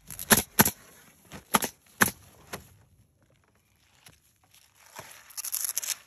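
Roofing work on a wooden roof: a quick, irregular run of about six sharp knocks in the first few seconds, then a rough scraping, rustling noise near the end.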